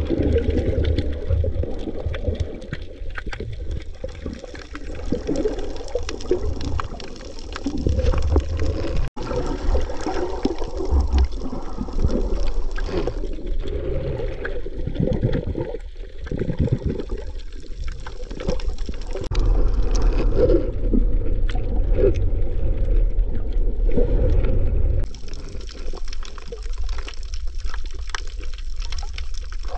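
Underwater sound through a camera sealed in a waterproof case: a muffled, low rush of moving water with a rumble and scattered faint clicks. It cuts out briefly about nine seconds in.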